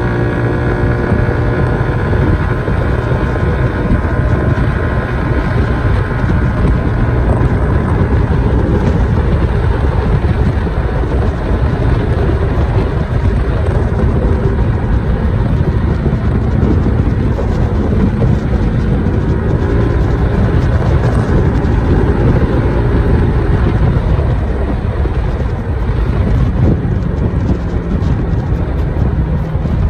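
Yamaha SMAX scooter's single-cylinder engine running at cruising speed, buried under heavy wind rush on the microphone and road noise.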